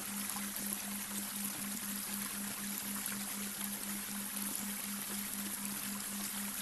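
Babbling brook running steadily, with a low tone pulsing evenly about four to five times a second laid over it as a delta brainwave track.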